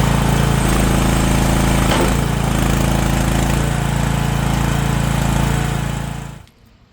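SSL60 skid steer engine running steadily, its tone shifting slightly about half a second in and again around two seconds, with a short knock at about two seconds. The sound cuts off near the end.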